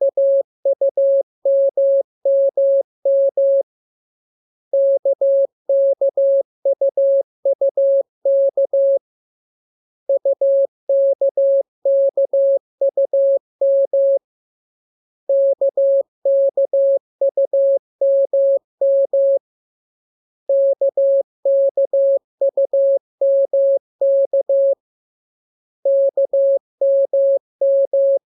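Morse code sent as a single steady electronic beep, keyed into short dots and longer dashes. The code comes in groups about four seconds long with pauses of about a second between them, as in receiving practice for a Morse lesson.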